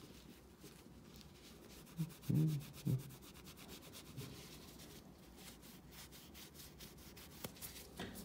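Cloth with metal polish rubbed back and forth over a chrome-plated sewing machine clutch knob, a faint, steady scrubbing. A few louder low bumps come about two to three seconds in.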